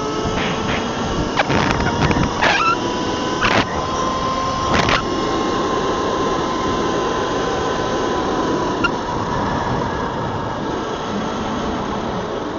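Electric motor of an E-Ride Pro SS 3.0 electric dirt bike whining while riding, its pitch rising a little and then easing off, over a rough rush of wind and ground noise. Several sharp knocks in the first five seconds.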